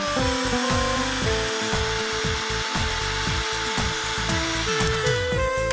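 Hot-air heat gun blowing a steady hiss for a few seconds while shrinking heat-shrink sleeving over a soldered cable joint on a COB LED strip, over background music.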